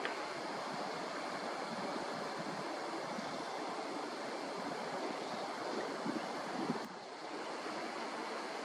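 Steady rushing outdoor ambience, an even hiss with no birdcalls or other distinct events, and a single short click about seven seconds in.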